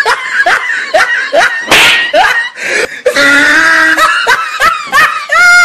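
High-pitched laughter in short rising bursts, about two a second, with a brief noisy burst about two seconds in and a long, shrill held cry a little past halfway.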